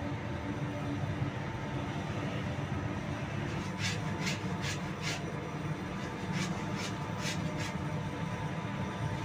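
Industrial dough mixer running with a steady mechanical hum as its hook kneads a large batch of bread dough. A little over a third of the way in, a hand scraper swipes the steel bowl in two quick runs of four short strokes each.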